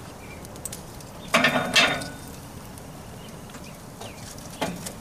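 Chunks of hickory wood knocking against the stacked logs and grill grate as they are set into the fire by hand: a quick cluster of knocks about a second and a half in and one more near the end, over the light crackle of the burning wood fire.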